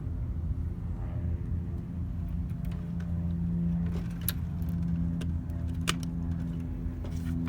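A steady low mechanical hum, with a few sharp clicks and light clinks over it.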